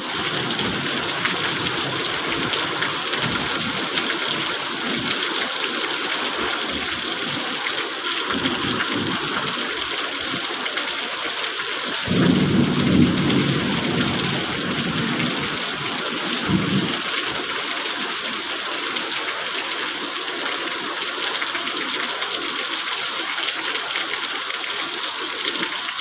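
Heavy rain falling in a steady downpour, a constant loud hiss. A low rumble of thunder rolls in about twelve seconds in for two seconds, with a shorter rumble a few seconds later.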